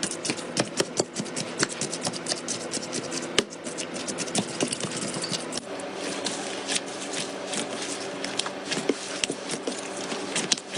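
Hands playing with slime, making a dense run of small, irregular clicks and crackles.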